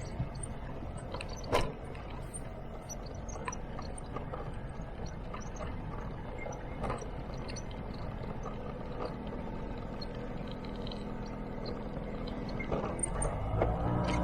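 Scooter engine running steadily while riding, with scattered knocks and rattles and one sharp knock about a second and a half in. The engine speeds up near the end.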